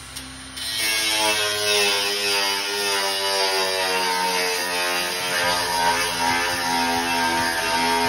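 Handheld angle grinder starting up about half a second in and grinding against the grill's metal: a steady whine that wavers in pitch as the disc is pressed on, over a hiss.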